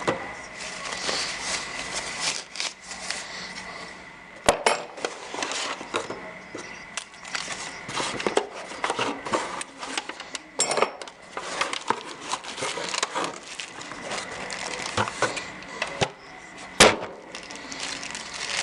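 Hands handling lock parts and packaging: continual rustling with small clicks and clinks of metal parts, and two sharp knocks, one about four and a half seconds in and a louder one near the end.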